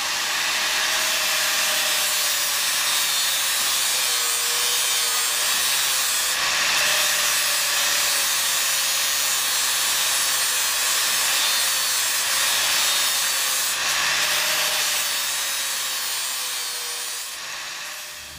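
Angle grinder grinding metal off a tab on a cross member, a steady hiss of disc on metal with a motor whine that dips and rises as the disc bites. It fades out near the end.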